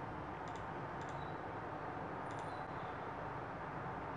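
Computer mouse clicks, three quick press-and-release pairs, over a steady background hiss.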